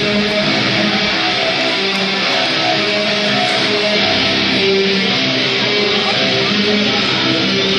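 Loud rock music led by electric guitar, played over the hall's speakers as entrance music for the newly announced general manager.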